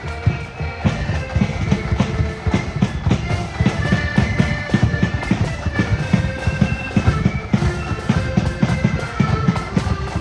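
Marching accordion band playing a tune: accordions holding the melody in sustained chords over a steady beat of bass and snare drums.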